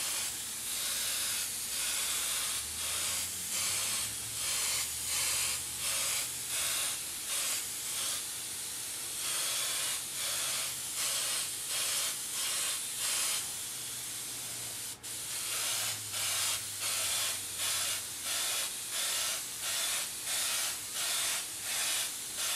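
Airbrush spraying paint in short hissing bursts, about two a second, as the trigger is worked to mist the colour on. A faint low hum runs under part of it, and there is a single click about fifteen seconds in.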